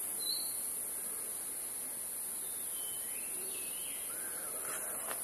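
Steady high-pitched insect chorus, with a few faint bird chirps in the second half.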